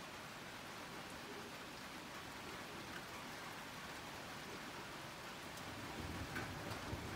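Steady rain falling and pattering, with a low rumble of thunder that starts about six seconds in and grows louder.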